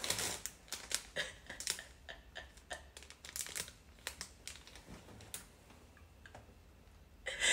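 Thin plastic packaging crinkling and crackling as it is pulled out and handled, in quick irregular clicks that stop about five and a half seconds in.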